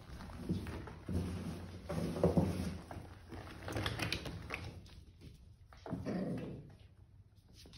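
Puppies playing: small play growls and whimpers in short bouts, mixed with scuffling and rustling as they tumble through a fabric play tunnel.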